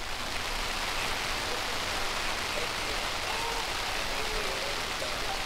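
Light rain falling, a steady even hiss.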